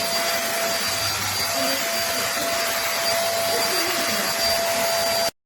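Duronic VC8 stick vacuum cleaner running: a steady rushing whir with a high whine over it. It cuts off suddenly near the end.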